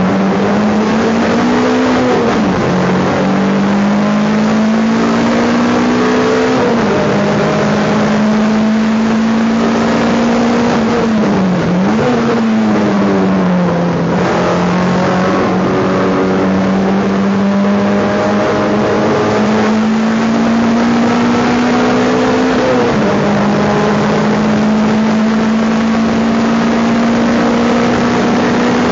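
Race car engine heard from inside the stripped cockpit, running hard on track. Its pitch climbs slowly and drops sharply at gear changes, about three seconds in, near seven seconds and near twenty-three seconds. Around twelve seconds in it dips and then climbs again as the car slows for a corner and accelerates out.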